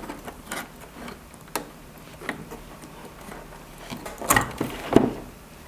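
Scattered small clicks and knocks from handling the TS-60 amplifier and its parts, with a faint low hum that stops about four seconds in. Two louder knocks follow near the end.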